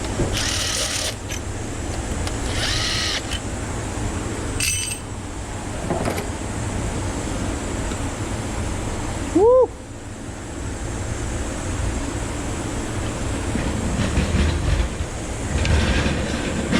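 Hand work on a partly dismantled engine: two brief scraping clatters early on, a short metallic clink, and a sharp rising squeak about halfway through, over a steady low rumble.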